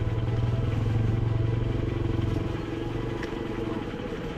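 Motorcycle engine running at low speed with a steady, even pulse, easing off a little near the end.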